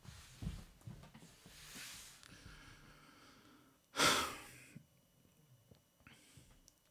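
A man breathing close to a microphone: soft breaths, then one louder breath out about four seconds in.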